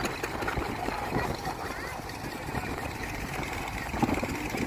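JCB 3DX backhoe loader's diesel engine running steadily while the backhoe arm works the bucket through pond water.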